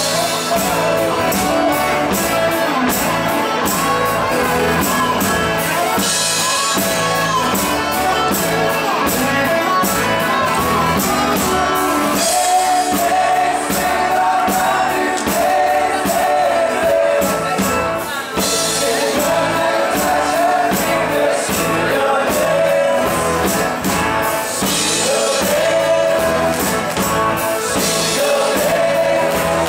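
Live rock band playing: male lead vocals over acoustic guitar, electric bass and a drum kit keeping a steady beat.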